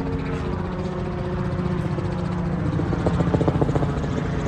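A steady engine drone with a low hum, pulsing rapidly for about a second near the three-second mark.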